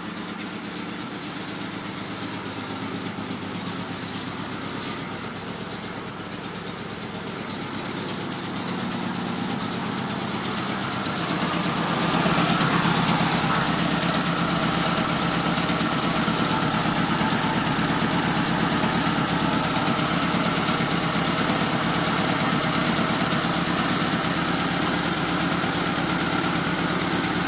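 1971 Volkswagen Beetle's air-cooled flat-four engine idling steadily with a fast even pulse, running again after sitting, on a new fuel pump and fuel filter. It grows louder over the first twelve seconds or so, then holds steady.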